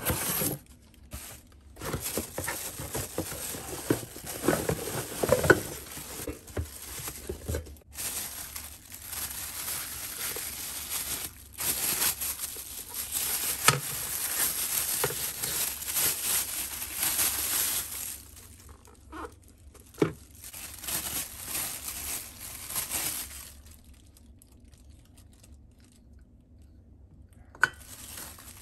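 Packaging being handled: cardboard box flaps and inserts rubbed and pulled, then a thin plastic bag crinkled and rustled as the slicer parts are unwrapped, with a few sharp clicks of parts knocking. The rustling dies down for a few seconds near the end.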